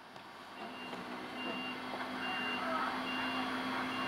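Evenly spaced high electronic beeps, a little more than one a second, over a steady low hum and background noise that fades in and grows louder.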